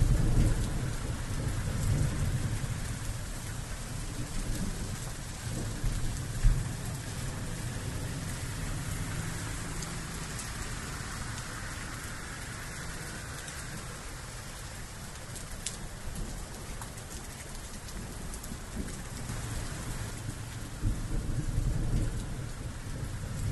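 Steady rain falling, an even hiss with a low rumble underneath in the first half and again near the end. A brief low thud comes about six and a half seconds in.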